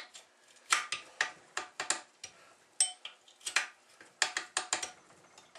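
Wrench and metal parts of an antique engine clinking and clacking irregularly as a part is worked loose during a teardown, with one short ringing metallic ping about three seconds in.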